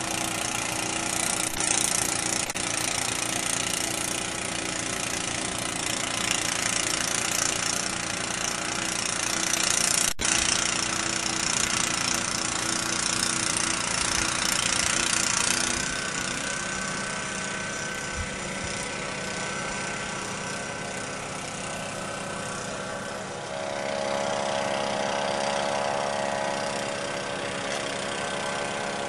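An engine running steadily with a strong hiss over it; its tone shifts twice, once about halfway through and again near the end.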